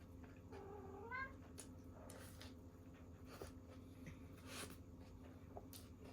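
A cat meowing once, a single call about half a second in that holds its pitch and then rises, with a few faint clicks afterwards.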